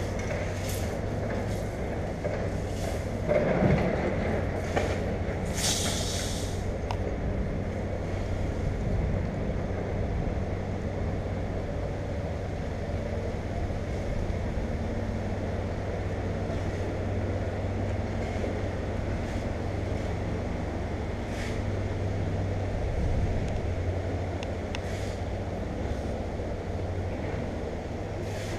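An engine running steadily at idle, a low even hum, with a brief hiss about six seconds in.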